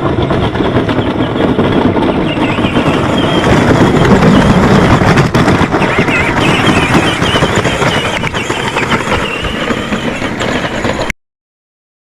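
Modded DeWalt-battery-powered John Deere Gator ride-on toy driving over rough ground, a loud rattling rumble that is heaviest about four seconds in and cuts off suddenly near the end.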